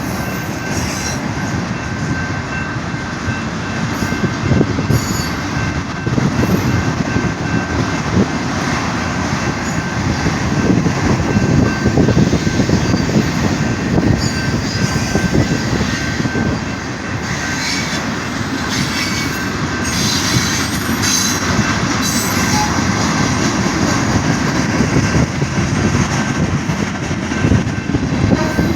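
Norfolk Southern freight train rolling past. The wheels clatter over the rails, with a steady high squeal of wheel on rail, making a loud racket.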